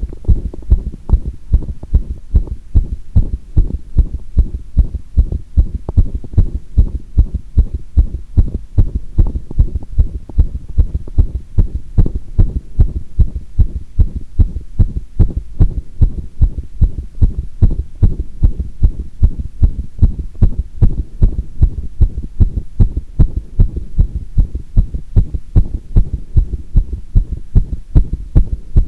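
A woman's heartbeat, picked up by a microphone pressed against her chest after squats. The lub-dub beats are steady and even, a little faster than one a second.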